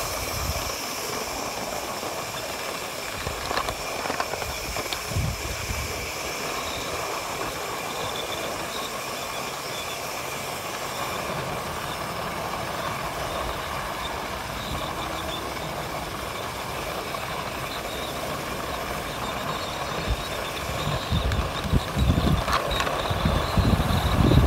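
Ride-on scale model of a K-28 steam locomotive rolling along its track with a riding car, heard from the car: a steady running hiss with the wheels on the rails. The low rumble grows louder and rougher near the end.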